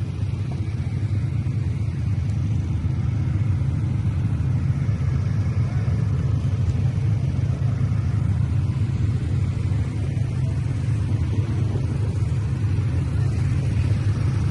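ATV engine running steadily on the move, a continuous low rumble.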